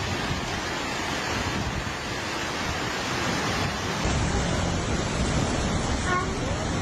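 Steady rushing noise of floodwater. About four seconds in it changes abruptly to a heavier rush with more low rumble.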